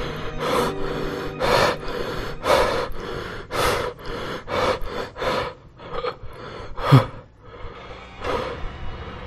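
A person breathing heavily and gasping, with panting breaths about once a second. A deep hit falling in pitch about seven seconds in is the loudest sound.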